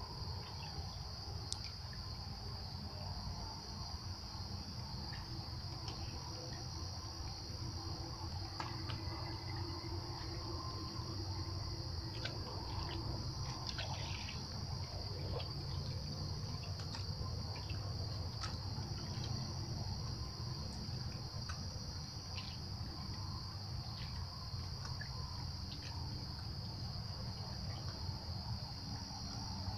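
Steady chorus of crickets: one continuous high-pitched trill that never breaks, over a steady low rumble, with a few faint ticks.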